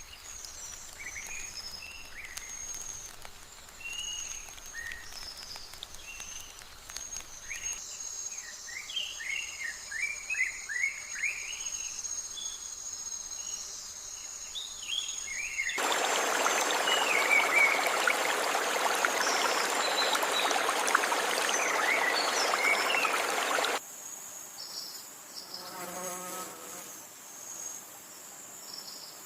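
Forest ambience: a steady high-pitched insect trill runs throughout, with many short bird chirps over it in the first half. About halfway through, a louder, even hiss starts suddenly and cuts off just as abruptly some eight seconds later. A brief low insect buzz follows near the end.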